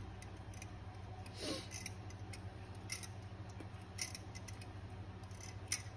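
A small hex key tightening the retaining pin in a Shield Arms magazine extension on a Glock magazine base: a few sparse, light metallic clicks and handling sounds over a faint steady low hum.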